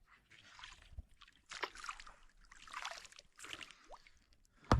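Oars dipping and sloshing in the water as a small boat is rowed, a few irregular soft swishes, with a short rising squeak and then a sharp knock near the end.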